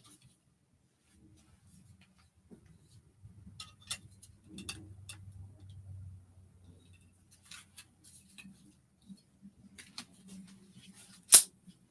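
Easel parts handled and adjusted by hand: scattered small clicks and knocks from clamps and tubes, with one sharp, loud snap near the end.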